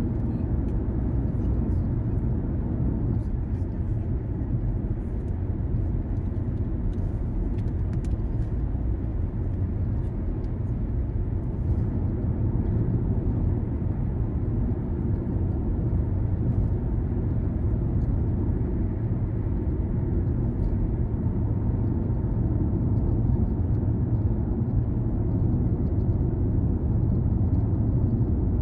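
Car driving along town roads: a steady low rumble of engine and tyre noise.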